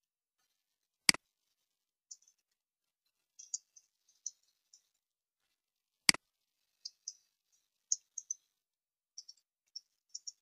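Computer keyboard and mouse: scattered soft key taps while code is typed, with two sharper, louder clicks, one about a second in and one about six seconds in.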